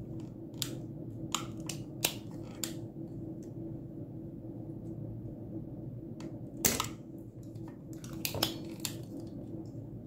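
Sharp, separate clicks and snaps from a small hand tool worked on a circuit board while a resistor is being desoldered. The loudest snap comes a little before seven seconds in, over a steady low hum.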